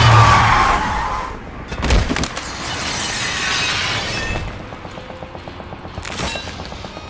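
A loud crash with shattering and breaking, followed by further hits and a long hissing sweep, over music.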